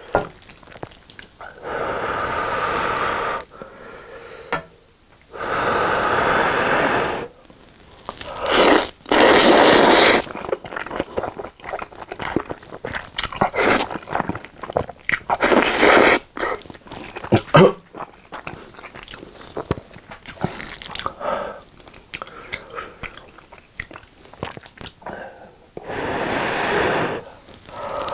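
Close-miked eating of carbonara Buldak spicy instant noodles: a series of long slurps, each lasting a second or two, with wet chewing in between.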